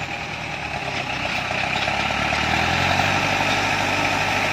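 Light truck's engine running under load on a muddy uphill track, getting gradually louder.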